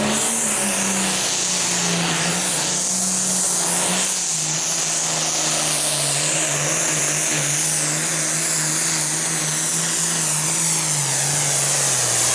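International Harvester 1066 Super Farm pulling tractor's turbocharged diesel engine running flat out under load while pulling the sled, with a loud high hiss from the turbocharger over a steady engine note. The engine note drops in pitch about four seconds in and again near the end as the sled's weight pulls it down.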